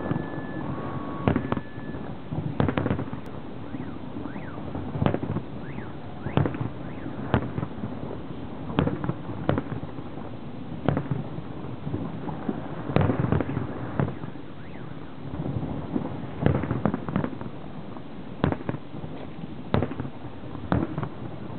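Aerial firework shells bursting in a salute display: a continuous run of sharp bangs at uneven intervals, roughly one or two a second, over a steady low rumble.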